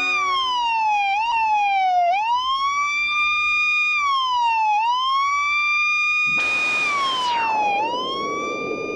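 Emergency-vehicle siren wailing, its pitch sliding down and climbing back in uneven swoops. About six and a half seconds in, a noisy whoosh falls steeply in pitch over about a second, leaving a low rushing noise under the siren.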